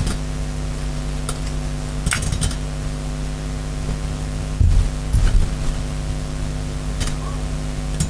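Small metal carburetor parts and tools being handled on a bench: a few light clinks and clicks, with a short run of dull knocks about halfway through, over a steady hum.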